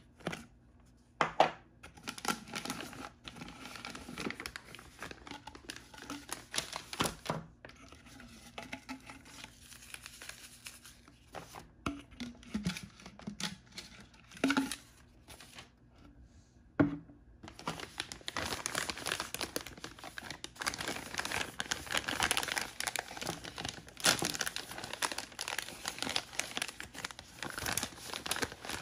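Wrappers of surprise-toy blind bags and eggs being crinkled and torn open by hand: scattered clicks and short rustles at first, then dense, continuous crinkling for roughly the last eleven seconds.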